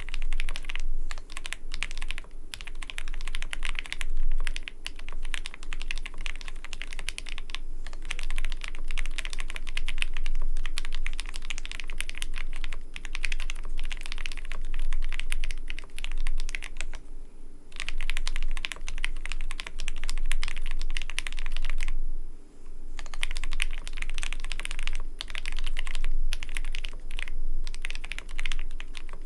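Custom mechanical keyboard being typed on in fast, continuous runs of keystrokes with a couple of short pauses, a deep, creamy clacking.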